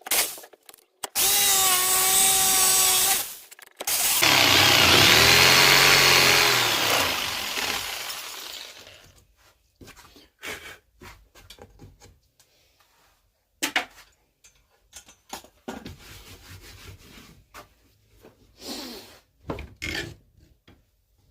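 Handheld electric power tool working wood in short runs. First comes a brief run at a steady pitch, then a longer, louder run whose motor speeds up and winds down. After these, quieter scattered knocks and clicks as the tool and workpiece are handled.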